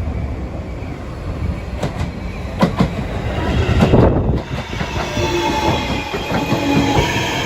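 Seibu Line electric train running on the rails, with a steady rumble and the wheels clicking over rail joints, the sharpest clicks in the middle.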